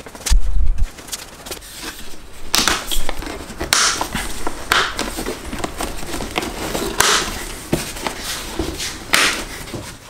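Handling noise of a lawnmower grass catcher being put together: irregular plastic clicks and snaps and fabric rustling as the fabric bag is fitted onto its plastic frame, with a low thump about half a second in.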